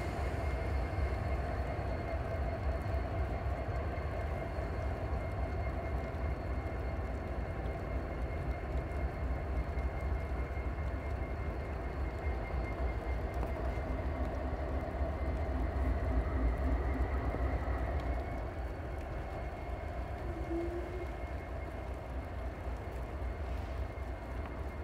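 Norfolk Southern diesel locomotives running, a steady low engine rumble that eases a little after about 18 seconds as the units pull away.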